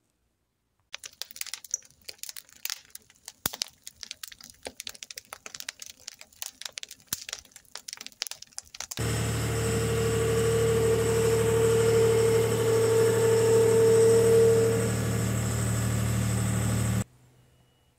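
A wood fire crackling, with scattered sharp pops for about eight seconds. Then a skid steer's engine running steadily, with a steady whine over it for most of that stretch, cutting off abruptly about a second before the end.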